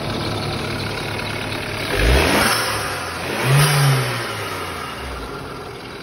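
BMW 328i engine idling and blipped twice, about two and three and a half seconds in, then settling back to idle. A hiss rises with each rev, the sign the mechanic puts down to a punctured diaphragm in the crankcase ventilation (anti-flame) valve.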